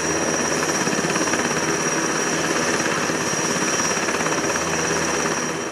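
Lockheed Super Constellation's four Wright R-3350 radial piston engines running, loud and steady with a fast, even beat; the sound dies away at the end.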